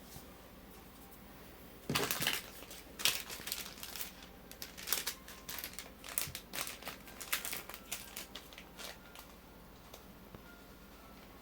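Crinkling and crackling of packaging being handled. A dense run of sharp crackles begins about two seconds in and thins out near the end.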